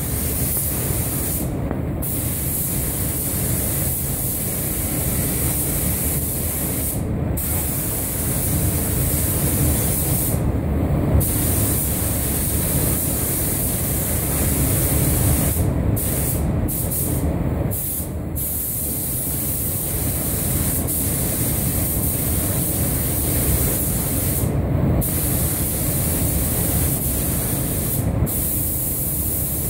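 Compressed-air paint spray gun hissing steadily as paint is sprayed, the hiss cutting out briefly several times as the trigger is let go, over a steady low rumble.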